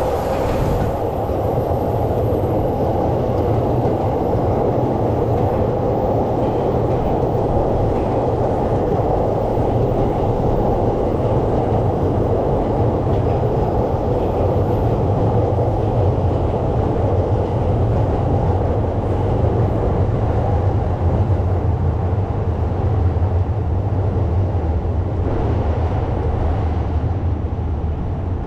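A train running on the tracks: a steady, even rumble.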